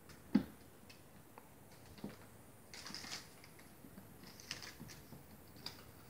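Kittens leaping and landing on a wooden floor: scattered paw thumps, the loudest about half a second in, with short scratchy scrabbles and rustles as they chase a paper lure dragged on a string across the floor.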